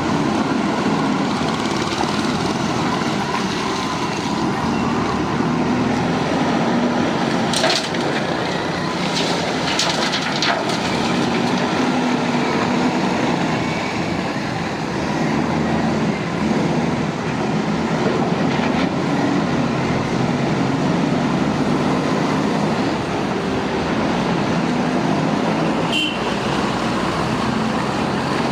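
JCB backhoe loader's diesel engine running steadily at work, with a few short sharp knocks scattered through.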